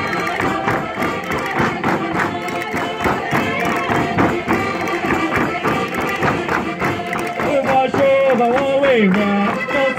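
Live Portuguese folk dance music with a steady beat. Singing voices come in about seven and a half seconds in.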